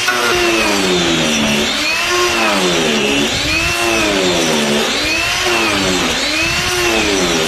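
Angle grinder fitted with a carbide-insert milling disc carving wood, its motor pitch dipping and recovering about once a second as the disc bites in on each pass, over the noise of the cutting.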